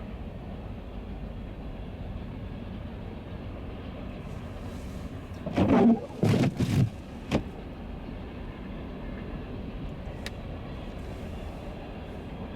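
Steady low rumble of a car heard from inside the cabin, with the engine running. About halfway through, a cluster of four short, loud knocks or thuds comes within two seconds.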